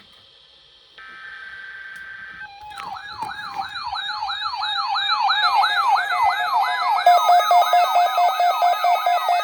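A short burst of steady electronic alert tones, then an electronic siren tone that sweeps up and down about three times a second and grows louder. A pulsing steady tone joins it near the end. This is the alarm signal of an emergency-alert tornado drill.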